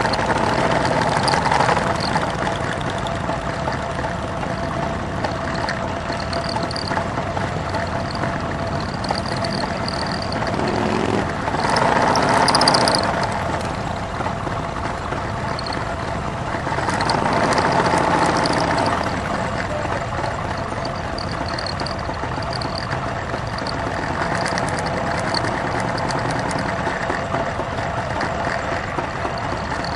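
Motorcycle engines running at low speed in slow, crowded traffic. The engine noise is steady, with two louder swells lasting a couple of seconds each, about eleven and seventeen seconds in.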